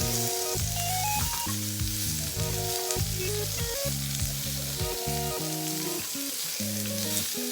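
Pork belly slices sizzling steadily in a hot skillet, with background music playing a simple tune over it.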